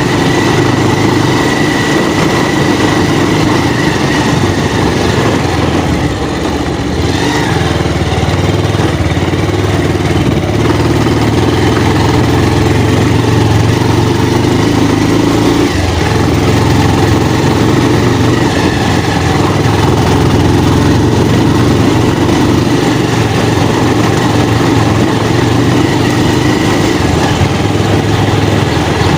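Motorcycle engine running steadily while riding, with a brief dip in loudness about six seconds in.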